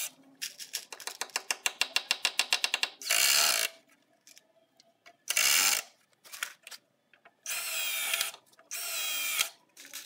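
Cordless drill-driver working on a wooden frame. It opens with a fast run of clicks, about ten a second, for roughly three seconds, then gives four short bursts of the motor.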